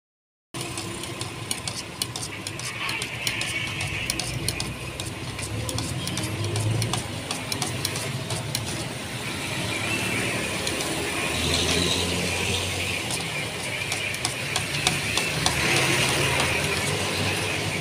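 Paint being stirred by hand with a stick in a metal can, the stick scraping and clicking against the can, over a steady low mechanical hum.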